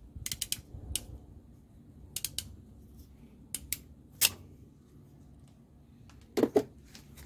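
Crimping pliers clicking as they squeeze blue insulated butt connectors onto the radiator fan wiring: a run of sharp, separate clicks, the loudest about four seconds in, then two duller knocks near the end.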